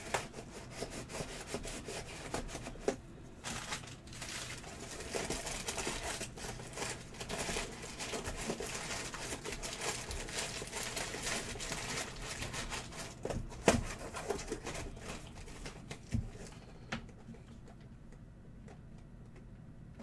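Crumpled packing paper crinkling and rustling while a cardboard box is handled, a busy run of crackles and light knocks with one sharper knock past the middle. It dies down about three seconds before the end.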